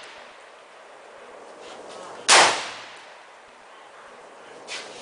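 A single shot from a Norinco CQ-A1 AR-15 carbine with a 10-inch barrel, firing .223, about two seconds in: a sharp crack with a short trailing echo. A fainter pop comes near the end.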